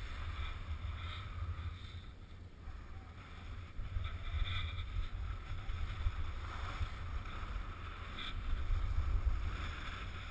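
Wind rumbling on a GoPro's microphone during a downhill ski run, over the hiss of skis sliding on snow, which grows briefly louder twice, about four and eight seconds in.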